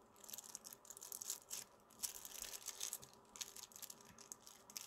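Faint, irregular rustling and scratching close to the microphone, a string of short soft scrapes with no speech.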